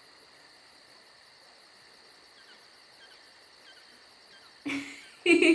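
Crickets chirping: a faint, steady, fast high trill with a few small chirps. Near the end a person makes two short vocal sounds, a breath or gasp, the second the loudest thing here.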